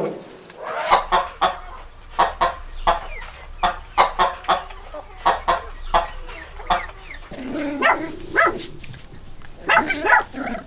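Chickens clucking: a long string of short, sharp clucks, about two a second, growing busier and overlapping near the end.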